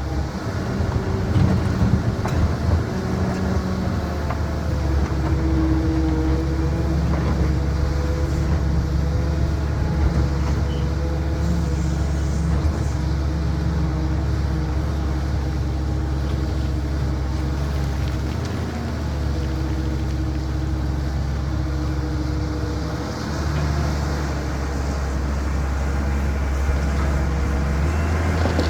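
CAT 320 hydraulic excavator's diesel engine running steadily under load, a deep drone with higher tones that shift in pitch now and then as the machine works.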